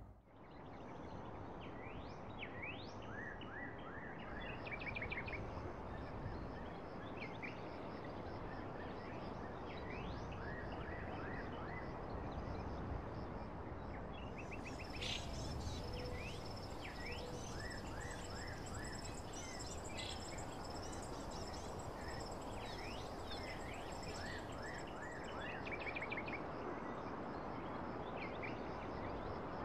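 Small birds chirping in clusters of short, quick calls that fall in pitch, over a steady background hiss. A thin, high steady tone comes in about halfway through and drops out some ten seconds later.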